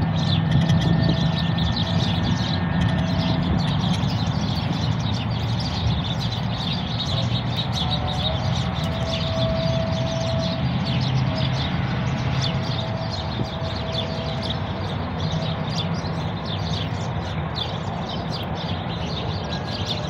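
Many small birds chirping and twittering together in a dense, continuous chorus, over a steady low hum.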